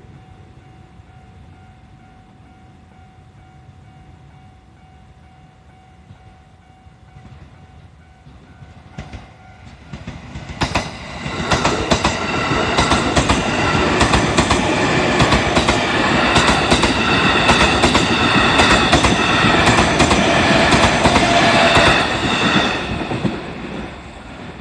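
A level-crossing warning bell rings steadily. About ten seconds in, a JR East E501-series electric train passes close by, loud for about twelve seconds, its wheels clacking over the rail joints in a fast regular beat before the sound falls away near the end.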